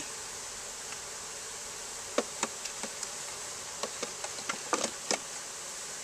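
Honey bees buzzing steadily around an open hive. Several light wooden knocks come between about two and five seconds in as the frames are set back into the hive body.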